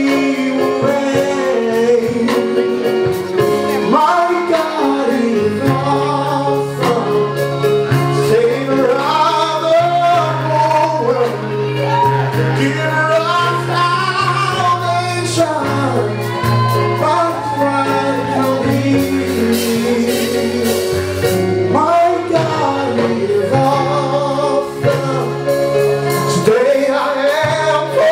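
Live gospel music: a man singing over electric keyboards with a held low bass line, and drums with cymbals.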